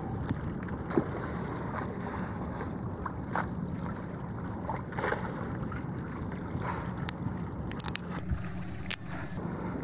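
A small boat out on the open ocean: steady wind and water noise with a low hum, and water splashing against the hull. A few sharp splashes or taps come near the end.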